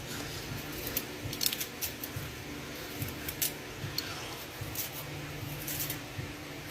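A blade finely cutting up ingredients: irregular crisp cuts and clicks, with a faint steady hum underneath.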